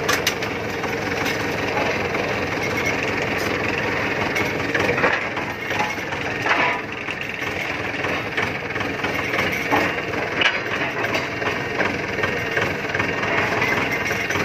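Diesel engine of a mobile concrete hollow block making machine running steadily, with the machine's rattle and a few short knocks around the middle.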